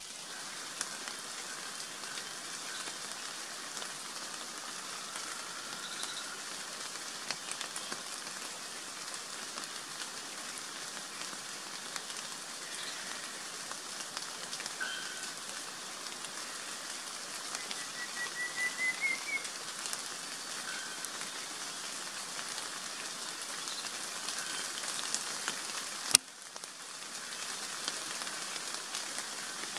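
Steady rain hissing and pattering on forest leaves, with scattered drips. Faint bird calls come through it, including a short rising trill of quick notes about two-thirds of the way in, and there is a single sharp click near the end.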